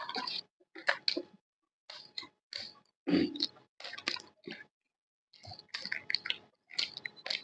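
Close-miked chewing and crunching of food: short bursts of crackly bites and mouth sounds, separated by brief silences.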